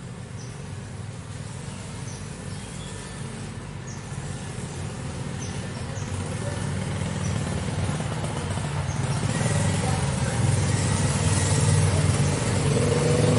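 A motor engine running and steadily growing louder, as of a vehicle drawing near. Faint short high chirps repeat through the first half.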